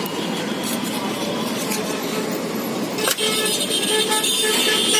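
Street traffic noise from passing road vehicles. From about three seconds in, a vehicle horn sounds in short toots.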